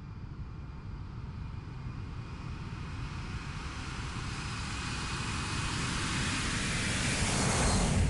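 Jet airliner flying past, its rushing engine noise and faint high whine growing steadily louder to the loudest point near the end.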